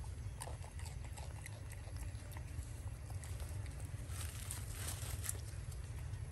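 Steady low wind rumble on the microphone, with scattered soft clicks and crackles, thickest about four to five seconds in, as a macaque takes and bites small green fruits from a hand.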